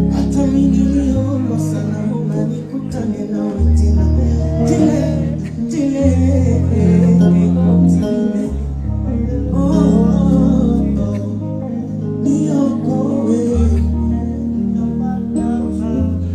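Music: a song with singing over guitar and a bass line that changes note every couple of seconds.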